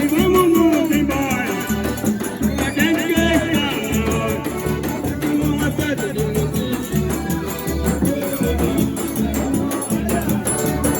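Forró music with a singing voice over a steady low beat and quick high percussion ticks.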